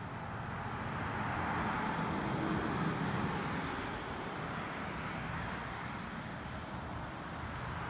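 Road traffic, a vehicle passing: a steady rushing noise that swells about two to three seconds in and then eases off.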